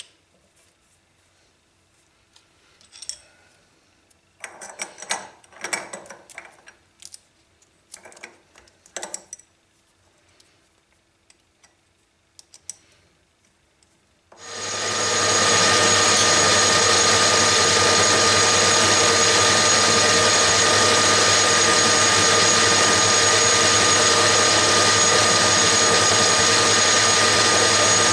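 Small metal clicks and rattles as a lathe tool bit is set and tightened in its holder with a hex key. About halfway through, a metal lathe starts and runs steadily, turning a shaft between centers: a loud, even machine noise with a constant low hum and a high steady whine.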